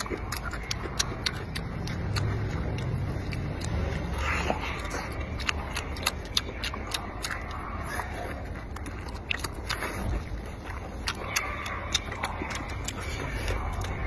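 Close-miked eating sounds: wet chewing and lip-smacking on braised lamb leg meat, with many short sharp mouth clicks.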